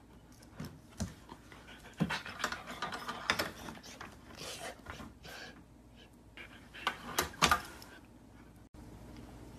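Dog panting in quick breathy bursts, with a few thumps and scuffs of bodies moving on a wooden floor.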